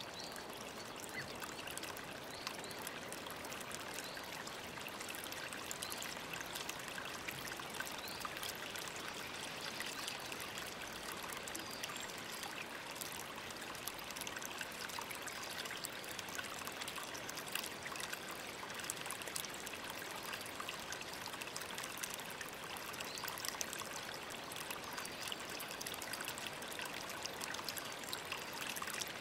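Running water: a small waterfall pouring steadily into a pool, a continuous rush with fine splashing and trickling.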